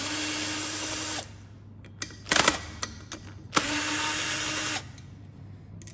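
Cordless drill-driver spinning out the bolts that hold the cam position sensors on a cylinder head, in two steady runs of about a second each, with a brief louder noise between them.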